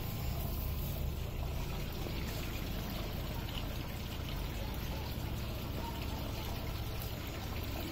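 Steady trickle of water running through a hydroponic system's drip lines and Dutch buckets.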